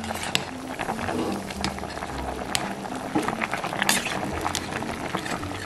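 A pot of pig's trotters in black vinegar sauce bubbling on the boil, with many small sharp pops as bubbles burst.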